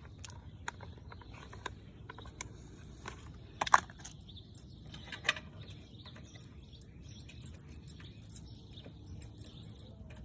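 Scattered small clicks and knocks of parts being handled at a lawn mower during setup, with two sharper knocks about four and five seconds in.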